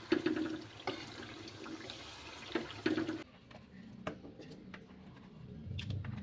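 Metal spoon scraping and stirring a thick meat dish in a hot wok over a steady sizzle of oil, with several sharp scrapes. About three seconds in, the sizzle stops abruptly, and the rest is quieter, with a few soft clicks and taps as raw meat slices are dropped into an empty wok.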